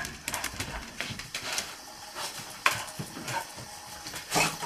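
A dog scrabbling inside a bathtub: a scatter of claw clicks, taps and knocks against the tub, with a louder knock a little past halfway and a louder scuffle near the end.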